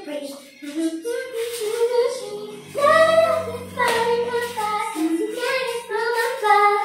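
A high female voice singing a pop melody, with sparse backing and a few low held notes about halfway through.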